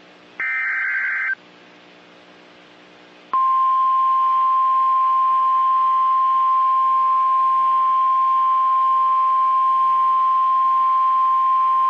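The last of the three SAME header data bursts of an Emergency Alert System message, a harsh digital warble about a second long. After a pause of about two seconds comes the NOAA Weather Radio 1050 Hz warning alarm tone, a single steady beep held for about nine seconds, which opens a new tornado warning.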